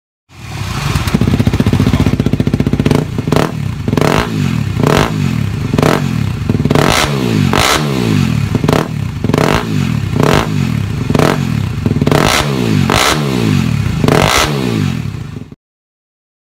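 Yamaha WR250X's 250 cc single-cylinder four-stroke engine through a Yoshimura RS4 slip-on muffler. It runs steadily for a couple of seconds, then is blipped over a dozen times, each rev jumping up sharply and falling back. It cuts off suddenly near the end.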